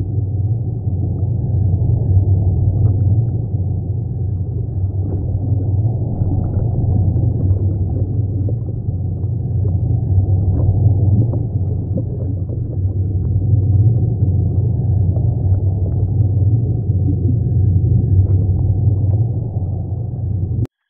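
Underwater ambience over a coral reef: a steady, muffled low rumble of moving water that swells and eases every few seconds, with faint scattered clicks. It cuts off abruptly just before the end.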